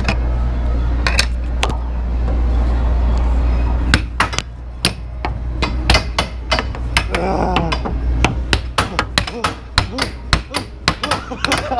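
Air hockey puck knocking against plastic mallets and the table rails in quick, irregular clacks, sparse at first and coming thick and fast from about four seconds in, over a low steady hum.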